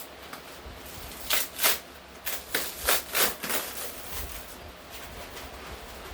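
Packing material being handled and pulled apart during an unboxing: a quick run of about six short rustling, crinkling bursts in the middle, then quieter handling.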